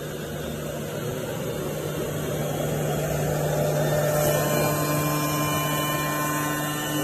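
CNC wood-turning lathe running, a steady hum under a rough machining noise that swells somewhat louder around the middle.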